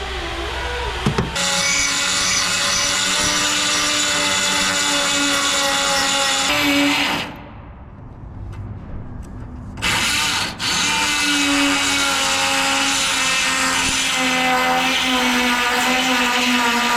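Power tool running at steady speed and cutting into the truck's steel bedside, giving a steady whine. It runs for about six seconds, stops for about two and a half seconds, then starts again, with a brief drop soon after it restarts.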